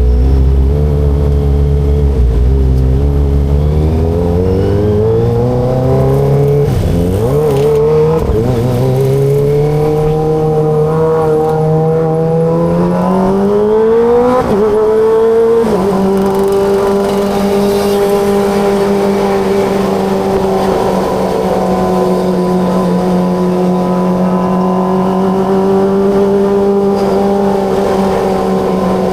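Kawasaki ZX-25RR's 249 cc inline-four engine under way, its revs climbing through the gears with short dips at each shift over the first half. It then holds steady revs at a constant cruising speed.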